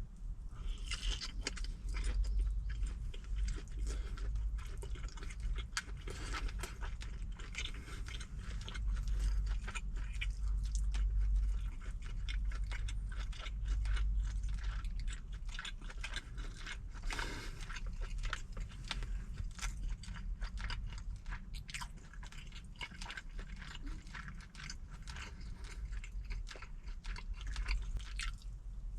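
A person chewing and crunching food close to the microphone, with many crisp bites and mouth sounds: fresh napa cabbage kimchi and boiled pork. A steady deep hum runs underneath.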